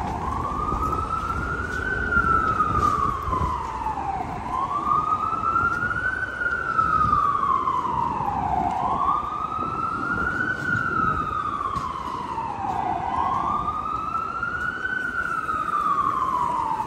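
Emergency vehicle siren in a slow wail, its pitch rising and falling about once every four seconds, over a steady rumble of city street traffic.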